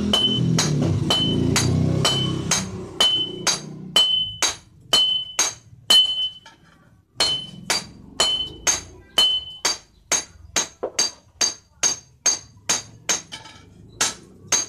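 Hammer blows on red-hot 19 mm ribbed steel bar laid on a steel anvil, about two a second, each strike leaving a high metallic ring, as the bar is forged into a nail-pulling crowbar. The blows pause briefly about six and a half seconds in, and a low rumble runs under the first few seconds.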